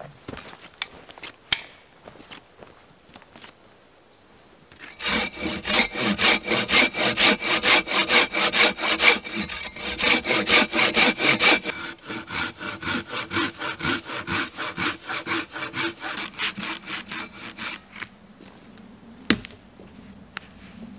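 Silky Bigboy folding hand saw cutting through a fallen log, back-and-forth strokes at about two a second. The strokes grow quieter and duller about halfway through and stop a few seconds before the end, followed by one sharp click.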